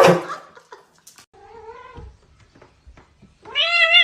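A cat yowling: a short, quieter meow-like call about a second and a half in, then a loud, drawn-out yowl near the end that rises and falls in pitch.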